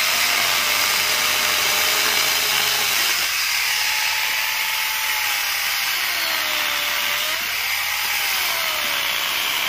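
Angle grinder cutting through mango branches: a steady motor whine over a hissing cut, its pitch sagging and rising again several times as the blade loads up in the wood and frees.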